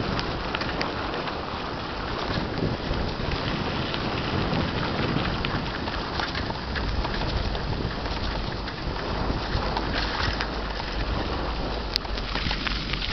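Bicycle tyres rolling over a bumpy dirt road: a steady crunching hiss peppered with small clicks and rattles, with wind rumbling on the microphone.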